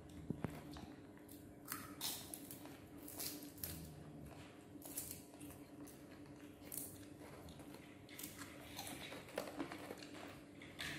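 Faint scattered clicks and crackles of small food pieces being picked out of a plastic cup and chewed by baby monkeys, over a steady low hum.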